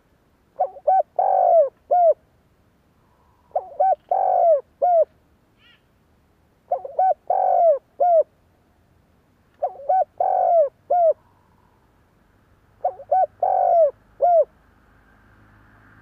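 Spotted dove cooing: five phrases about three seconds apart, each made of two short notes, a longer middle note and a short closing note. A faint rising hum creeps in near the end.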